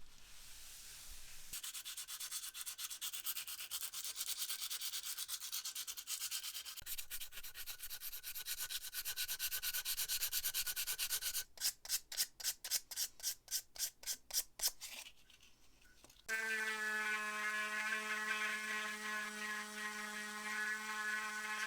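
Hand sanding of the antique lighter's metal, a continuous abrasive rubbing, followed by about ten quick back-and-forth strokes. About sixteen seconds in, a small electric rotary tool starts and runs with a steady whine.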